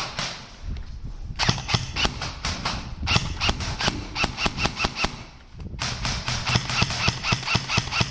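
Airsoft guns firing: rapid strings of sharp pops from about one and a half seconds in, a brief pause about five and a half seconds in, then more rapid pops.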